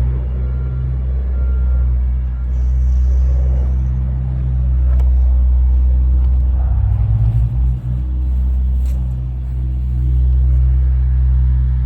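Diesel engine of heavy road-construction machinery running with a steady low rumble, its note shifting briefly about seven seconds in.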